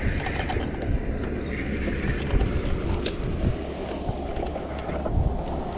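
Steady low wind rumble on the microphone over open water, with a few short clicks and knocks from handling the fishing rod and reel.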